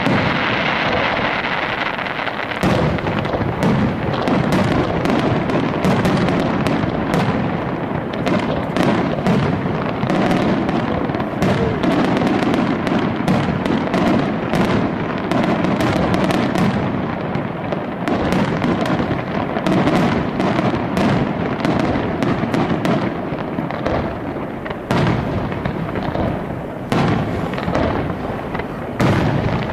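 Aerial fireworks display: a dense, continuous barrage of shell bursts and crackling bangs with no pause, a few sharper loud cracks standing out near the end.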